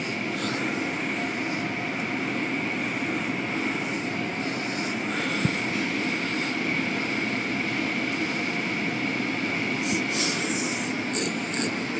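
Automatic car wash machinery running: steady mechanical noise with a constant high-pitched whine.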